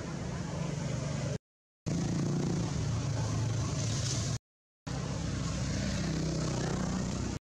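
Steady low rumble and hiss of outdoor background noise. It drops to dead silence for about half a second twice, about a second and a half in and again just past four seconds.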